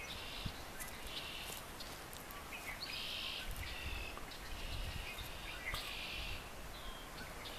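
Rural outdoor ambience: short, high, buzzy trills repeat about every second, from wild creatures calling, over a low rumble of wind on the microphone.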